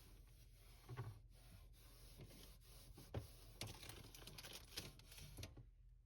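Faint rustling and light knocks of small objects being handled, over a steady hiss that drops away near the end.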